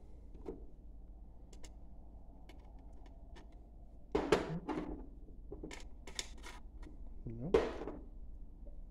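Handling of small metal hardware and a metal mounting plate: faint clicks, then several louder knocks and scrapes in the second half.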